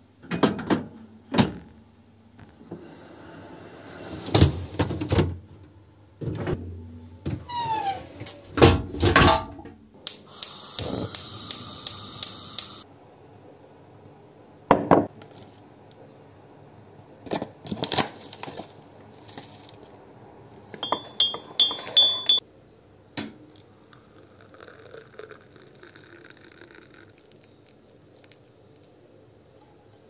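Drinking glasses clinking against each other and against a dishwasher's wire rack as it is unloaded, then a run of kitchen handling sounds (sharp knocks, rattles and quick clicks) while a cup of coffee is made.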